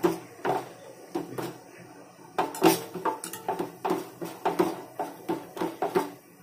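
Raw chicken pieces being mixed by hand into a wet masala marinade in a steel bowl: irregular wet squelches and soft knocks of meat and hand against the metal, a few a second, busier from about halfway through.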